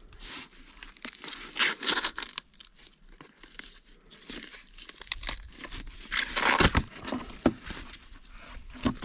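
Fresh green husks being torn and stripped off ears of milk-stage sweet corn by hand: a series of crinkling, tearing rips, the loudest about two seconds in and again around six to seven seconds in, with a couple of dull knocks around seven seconds in.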